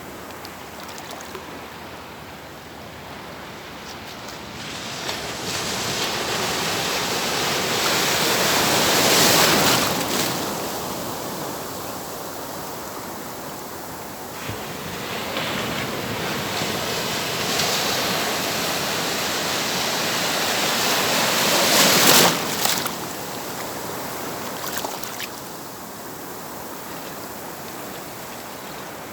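Atlantic surf breaking on the shore: a steady wash that builds twice into a loud crash of a breaking wave, about a third of the way in and again about three quarters through, each falling back to a hiss.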